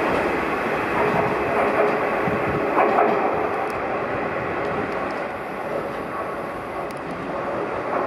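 Nishitetsu electric commuter train running on the tracks at the station, with a steady, loud rumble of wheels on rail that gradually fades toward the end as the train moves away.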